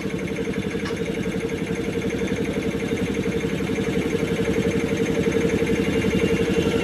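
A small engine running steadily at idle, with a rapid, even pulse and a constant hum.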